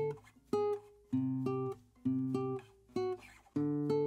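Acoustic guitar music, strummed chords repeating in a steady rhythm about twice a second.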